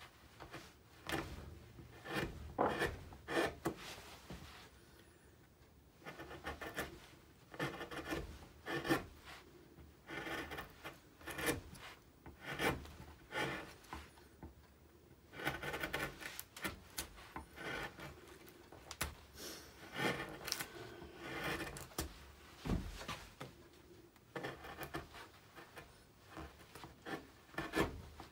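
Carving gouge pushed by hand through alder wood: short scraping, slicing cuts in quick runs, with brief pauses between runs.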